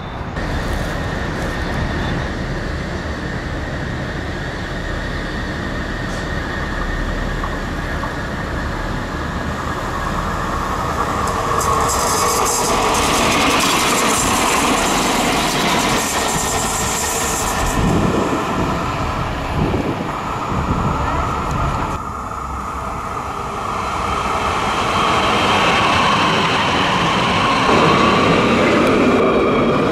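Trams running on the track: steady wheel-on-rail rolling noise and motor hum, growing loudest with a hiss about halfway through as a tram passes close by. After a brief drop, another tram is heard approaching near the end.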